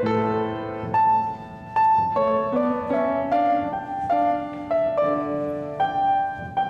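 Piano playing a melody of struck notes, roughly two a second, over held lower chords.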